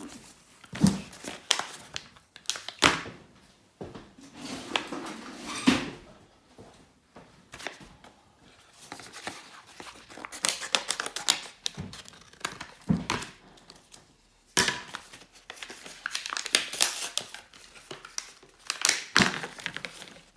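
Crinkling and rustling of plastic being handled, with scattered knocks and taps.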